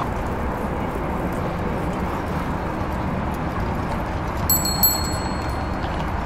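A bicycle bell rung in a few quick strikes about four and a half seconds in, its ring dying away over about a second. Under it runs a steady low street noise.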